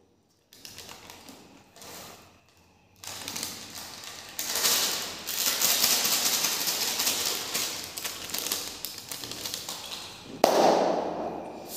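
Crinkling of a plastic snack packet and crunching of Kurkure corn puffs as they are tipped into the mouth and chewed: a dense, crackly run of small clicks. Near the end comes a short, louder, muffled burst.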